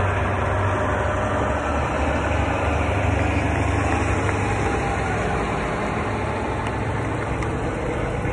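Fire trucks' heavy engines running as they roll slowly past, a steady low rumble.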